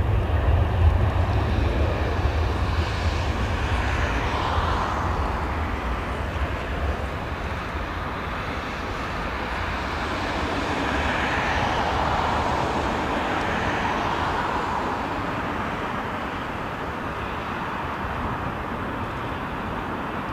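Boeing 787-9 Dreamliner's twin Rolls-Royce Trent 1000 turbofans at take-off power during the take-off roll and lift-off: a continuous jet roar with a heavy deep rumble that eases after the first few seconds. Its tone slowly sweeps and shifts as the aircraft speeds away.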